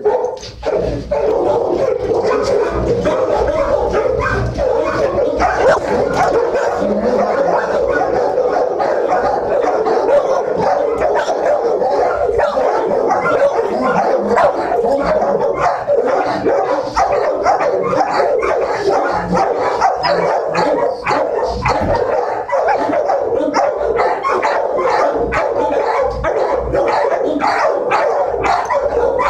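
Many dogs barking at once in a shelter kennel block, a dense, continuous din of overlapping barks and yips with no break.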